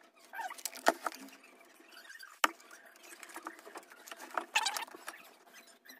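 Handling noise from fitting a plastic chin mount and its strap onto a motorcycle helmet: irregular rustling and scraping with a few sharp plastic clicks, the loudest about a second in and about two and a half seconds in. The audio is sped up to double speed, so the scrabbling sounds quick and high.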